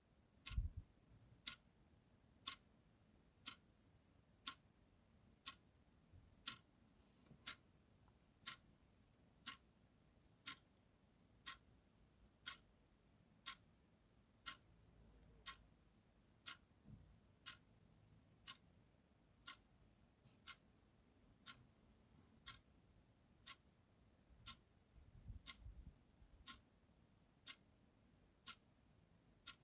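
Clock ticking sound effect: a quiet, even tick-tock at about two ticks a second.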